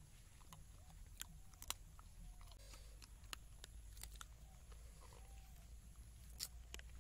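A dog chewing and crunching scraps off a banana leaf, heard faintly as a few separate sharp crunches a second or more apart.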